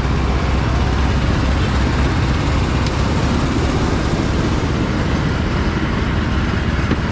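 Steady street traffic noise: a continuous low rumble of passing vehicles and engines.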